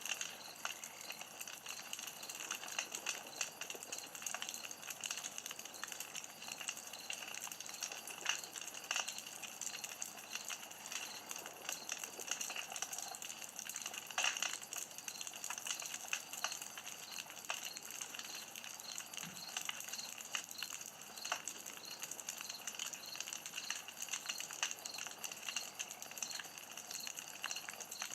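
Campfire crackling steadily, with a hiss and many small snaps and a few louder pops.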